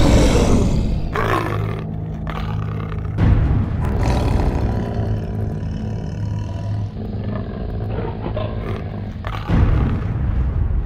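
A monster's roar sound effect over a low, dark music drone. The roar surges loudest right at the start, again about three seconds in, and once more near the end.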